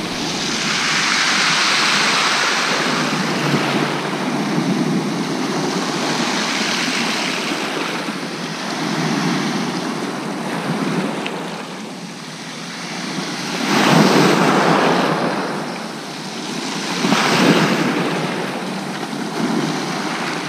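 Sea waves breaking and washing up a shingle beach, the surf swelling and easing every few seconds.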